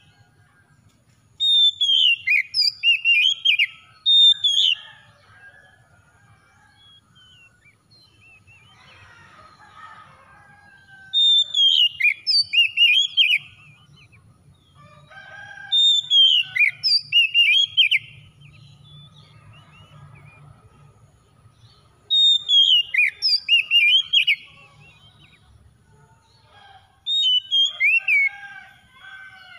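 Oriental magpie-robin singing in full song: five loud phrases of clear whistled notes, each about two seconds long, many sliding downward in pitch, with softer chattering notes in the pauses between phrases.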